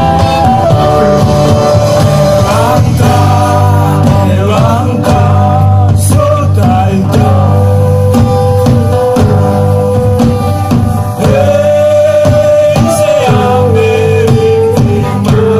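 Live band music: a singer holding long notes that glide between pitches over guitar accompaniment.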